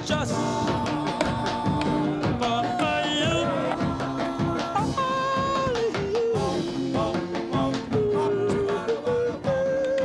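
Music: a slow song with guitar and a held, sliding sung melody.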